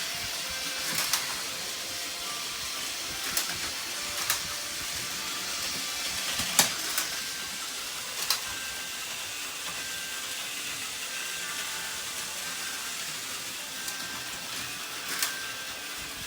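Small electric motors and plastic gears of Plarail toy trains whirring steadily, with sharp clacks a few times.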